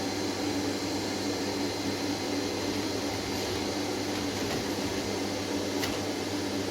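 Steady hum and hiss of a running motor, with a constant low drone and a thin high whine.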